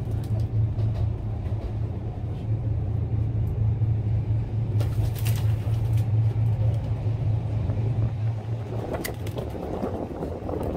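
Heritage double-decker electric tram running, heard from the upper deck: a steady low hum and rumble from the motors and wheels on the rails, with a few sharp clicks. Near the end the hum drops away and a rushing wind noise takes over.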